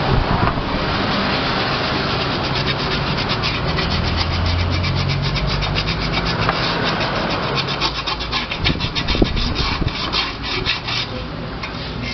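Sandpaper rubbed by hand against the aluminium of a pressure cooker, in rapid back-and-forth strokes that grow quicker and sharper from a few seconds in, smoothing the metal after straightening.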